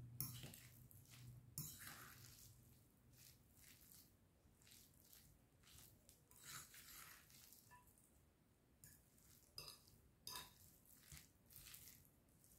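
A fork stirring and tossing a moist chicken and vegetable salad in a glass bowl: faint, scattered clinks and scrapes of the fork on the glass with soft squishing of the mixture.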